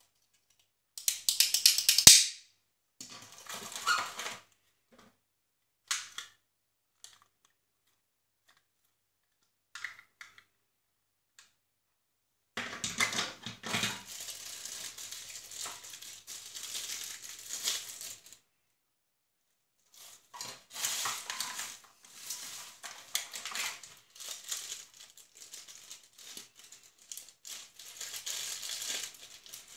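Handling noise from unpacking plastic-packed action-camera accessories: a few short clicks and rustles of plastic parts, the loudest about a second in, then long stretches of crinkling plastic bags and a clear plastic clamshell tray.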